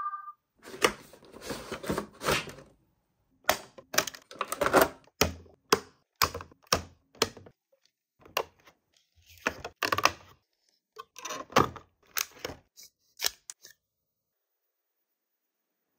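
Clear plastic blister packaging clicking, tapping and crackling in short, irregular bursts as small plastic toy figures are handled and pulled out of their tray. The sound stops a couple of seconds before the end.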